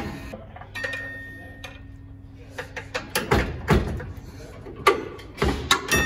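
Sharp metal knocks and clanks of a long screwdriver worked against the underside of a truck, about five in the second half, over a steady hum.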